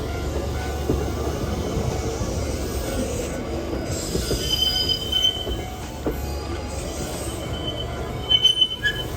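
Hankyu Itami Line train rounding a very sharp curve, its wheels squealing against the rails over the low rumble of the cars. Thin high squeals come and go, loudest about halfway through and near the end.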